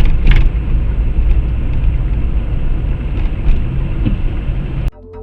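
Steady low road and engine rumble inside a moving car, recorded by its dashcam, with a few faint clicks. It cuts off suddenly near the end, and electronic music starts.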